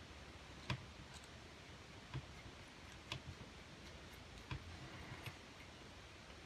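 A few faint, scattered clicks and taps, about five over several seconds, of small gun-cleaning tools being handled while a brush is fitted.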